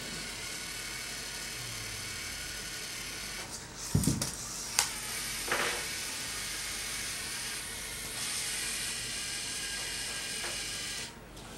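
Small LEGO Mindstorms robot's electric motors and gears whirring steadily as it drives, with a thump about four seconds in and a couple of lighter knocks just after.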